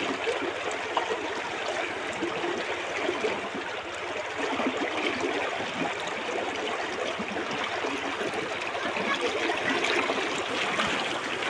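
Water rushing steadily along a concrete irrigation canal.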